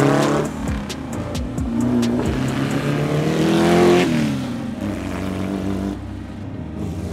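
Porsche 550 Spyder's four-cam flat-four engine as the car drives past at speed, its pitch dropping as it goes by. This happens at the start and again about four seconds in.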